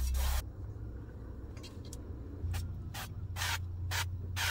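Cooking oil sprayer hissing in short spurts onto an air fryer basket and spring rolls: one longer spray at the start, then about four quick sprays in the second half.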